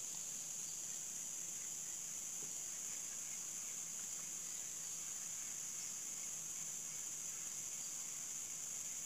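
Steady high-pitched chorus of insects from the riverside tropical forest, an unbroken shrill hiss.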